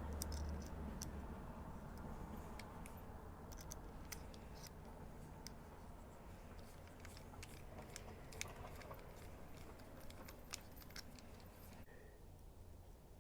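Scattered small clicks and light taps of metal knife parts being handled and fitted during reassembly of a slip joint folding knife, over a faint low room hum.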